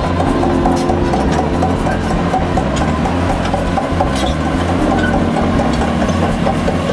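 Diesel engine of a Caterpillar 349E L hydraulic excavator running steadily, with a fast regular pulse through it.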